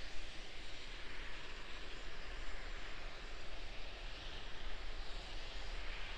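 Steady rushing hiss of propellant venting from Starship SN10 and its pad during propellant loading, with a low rumble underneath.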